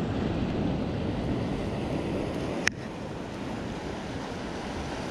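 Steady rushing of wind and sea surf, with one sharp click a little over halfway through, after which the rushing is slightly quieter.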